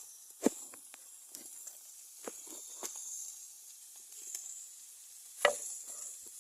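Chorizo sizzling as it fries and browns in a pan, with a steady hiss and scattered sharp pops or clicks; the loudest comes about five and a half seconds in.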